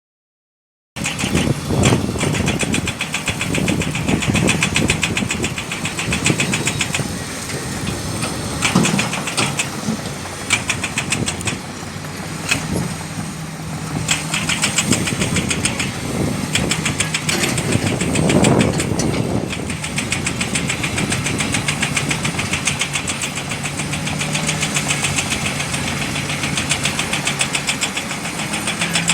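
Heavy diesel engines of an excavator and a dump truck running, with a fast, dense clatter. The engine note swells several times, most strongly about two-thirds of the way in, as the machine is worked.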